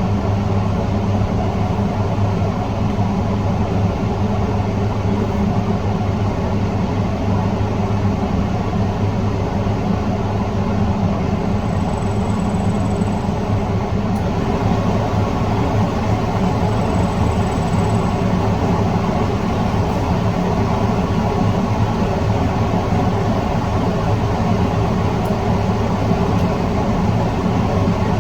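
A steady mechanical drone with a low hum, unchanging in level throughout.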